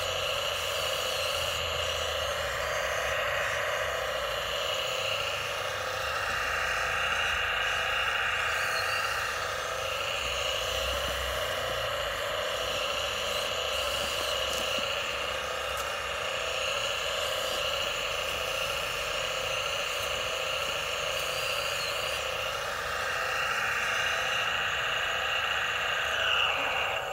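Electric gear motors of a Huina RC excavator whining steadily as the boom, arm and bucket move, the tone shifting every few seconds as different functions run.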